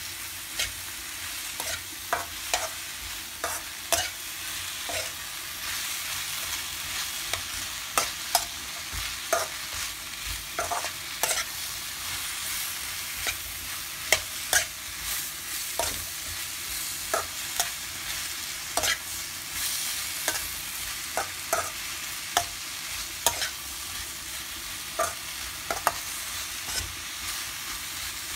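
Sliced mushrooms, peas and onions sizzling in oil in a wok, with a steady hiss, while a metal spoon stirs them, scraping and clinking against the pan about once or twice a second.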